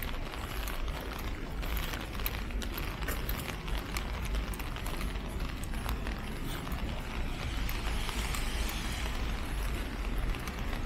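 Rainy city street ambience: a steady hiss of rain and traffic on wet roads over a low rumble, with footsteps on wet pavement and scattered ticks of drops.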